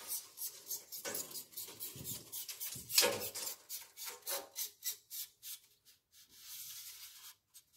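Thin stainless steel strip being slid along into the slot of an extruded readout rail, scraping and rubbing in a run of short strokes, the loudest about three seconds in. A longer steady scrape follows near the end and then stops.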